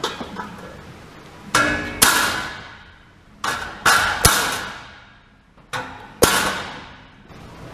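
A hammer striking metal seven times, in groups of two, three and two, each blow a sharp clang that rings on and dies away. The blows are meant to drive the motor shaft down out of its cog, with the motor clamped in a bench vise.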